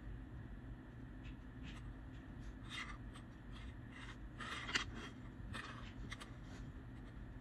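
Faint scrapes and light ticks of small plastic colour-test caps being slid and set down on a wooden tabletop, irregular and bunched in the middle, with the sharpest tick about two-thirds of the way in. A steady low hum runs underneath.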